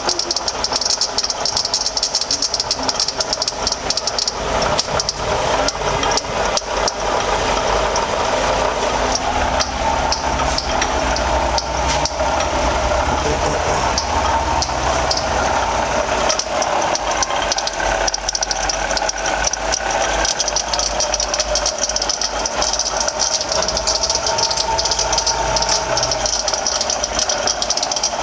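2007 Toyota RAV4's 3.5-litre V6 running, with a steady rattle and high whine from a bad water pump.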